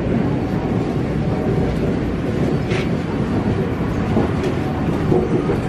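New York City subway train moving through the station beside the platform: a steady, loud rail noise of wheels on track.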